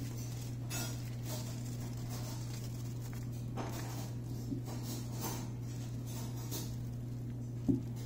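A steady low hum with a few faint, scattered clicks and one sharper knock near the end.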